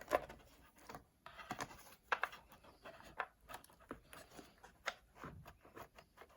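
Scattered light clicks and short scrapes of hands and tools handling parts inside an opened iMac, easing its internal speaker aside.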